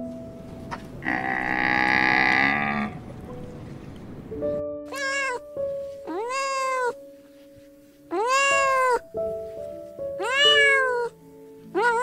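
A cat meowing about five times, each meow rising and then falling in pitch, after one longer, lower animal call near the start. Soft background music runs underneath.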